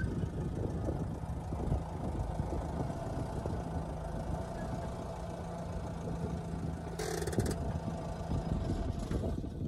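Car engine idling steadily, with a brief hiss about seven seconds in.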